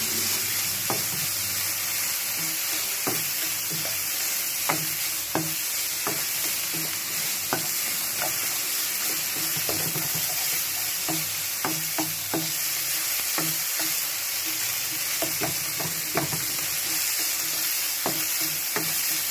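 Minced fish sizzling steadily as it fries in oil in a nonstick wok, with a spatula stirring it and clicking and scraping against the pan at irregular, frequent moments.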